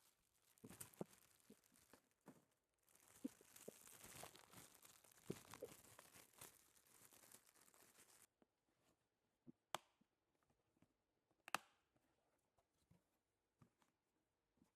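Faint rustling and crinkling as the new cabin air filters are unpacked and handled, then two sharp clicks a couple of seconds apart.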